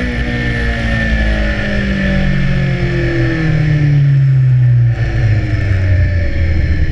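BMW S1000R's inline-four engine, heard from the rider's seat, with its revs falling steadily for about five seconds, a brief dip, then a lower steady note.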